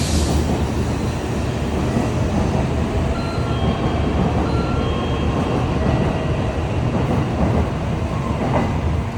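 Shinkansen bullet train running at speed: a loud, steady rush of rail and running noise, heaviest in the low end, with a brief hiss at the start.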